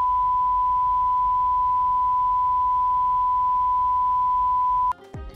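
Television colour-bar test tone: one steady, unwavering beep at a single pitch that cuts off suddenly near the end, where music begins.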